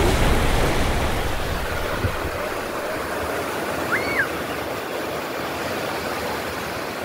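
Surf washing on a sandy beach: a steady rush of wave noise that slowly eases off over the first few seconds. A brief faint chirp comes about four seconds in.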